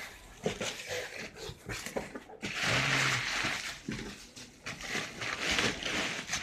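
Bubble wrap and cardboard crinkling and rustling as a laptop is unpacked from its shipping box, with scattered light knocks. The loudest rustle comes about two and a half seconds in and lasts around a second.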